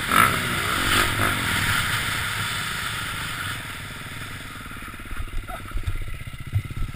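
KTM motocross bike's engine revving hard, then running lower and slower as it loses speed, with wind rushing over the helmet-camera microphone. Near the end come a few heavy thumps as the bike goes down in the dirt.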